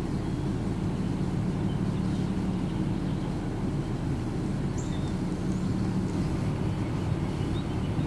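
A car's engine and tyres running, heard from inside the moving car: a steady low rumble.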